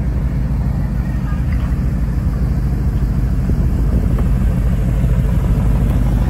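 Steady low rumble of a motor vehicle, growing a little louder partway through.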